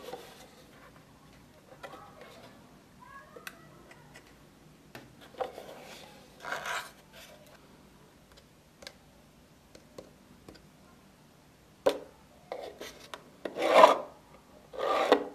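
Hard plastic parts of a 3D-printed toy cash register clicking and rubbing as it is handled and its keys are pressed. Near the end its drawer slides out with a rasping scrape, the loudest sound.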